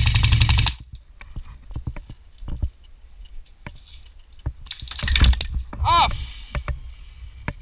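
Airsoft guns firing rapid clicking shots: a dense burst right at the start and another about five seconds in, with scattered single clicks between and a short shout near six seconds.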